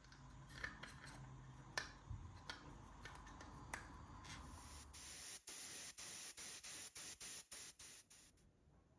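A few scattered light clicks, then a steady high hiss starting about four and a half seconds in, broken by many brief dropouts and stopping shortly before the end.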